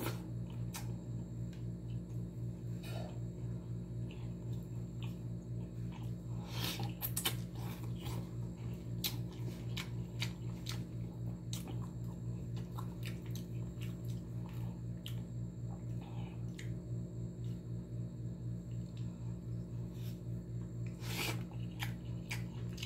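Eating by hand: scattered wet smacks and clicks of chewing fish and rice. Under it runs a steady low hum that pulses a few times a second.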